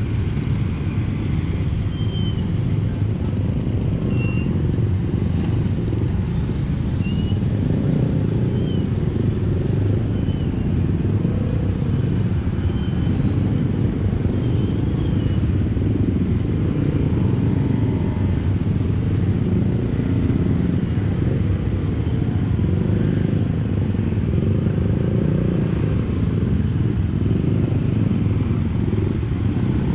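Heavy mixed traffic crossing the tracks, mostly small motorcycle and scooter engines running and pulling away, with a car and a truck among them, making a steady dense engine drone. Small high chirps come through now and then.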